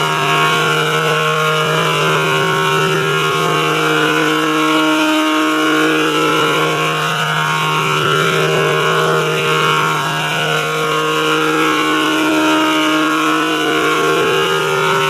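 Synthesized drone of held tones in G major, a steady low note under sustained higher notes that shift a few times.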